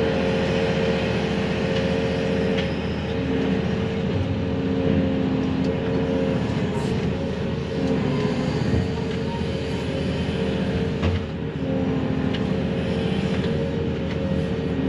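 Excavator's diesel engine and hydraulics running under load, heard from inside the cab: a steady drone with a constant whine as the grapple works a load of brush, with a few faint clicks.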